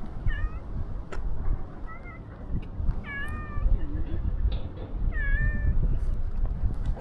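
Street cats meowing: about four short meows, the two in the second half the loudest, over a low rumbling background noise.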